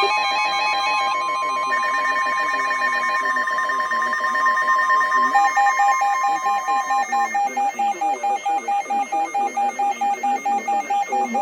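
Emergency alert tones from several radio receivers overlapping: steady pure alert tones, including one near 1 kHz like the NOAA Weather Radio warning alarm tone, which stop after about seven seconds, while a separate tone starts beeping rapidly and evenly about halfway through.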